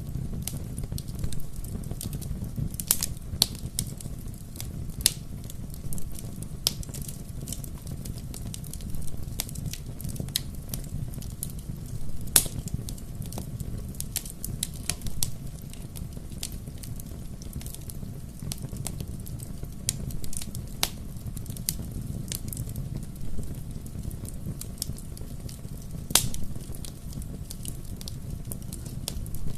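Wood fire crackling and popping, with irregular sharp snaps over a steady low rumble of the flames; a couple of louder pops stand out, about 12 seconds and 26 seconds in.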